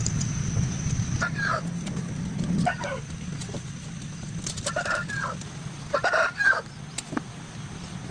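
Chickens clucking: a handful of short calls spread over several seconds, the busiest near the five and six second marks, over a low rumble that fades out about three seconds in.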